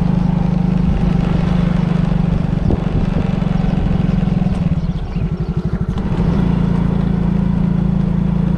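Motorcycle engine running at a steady speed. About five seconds in it eases off, dropping briefly so that its separate firing beats can be heard, then picks up again.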